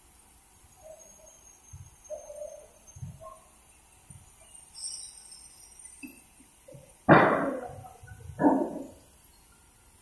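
Two loud wooden clatters about a second and a half apart, as sawn kelat kuning planks are dropped onto a stack of boards. Light knocks and clinks of handled timber come before them.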